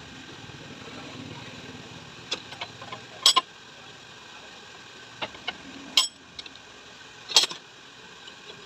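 Sharp metallic clicks and knocks from hand work on a motorcycle mono-shock absorber during gas filling. There are several of them, the loudest a little over three seconds in, at about six seconds and near the end, over a low steady background.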